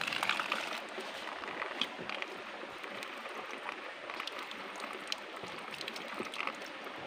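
Water running steadily: a thin trickle of spring water pouring off the rocks.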